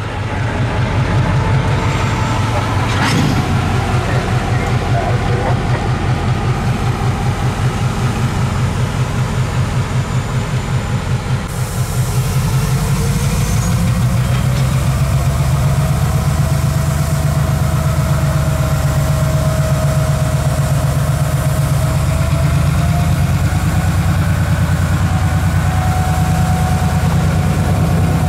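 EMD SW1500 switcher's diesel engine running with a rapid low throb, coupled to a cut of tank cars. It gets louder about twelve seconds in, and there is a single sharp clank about three seconds in.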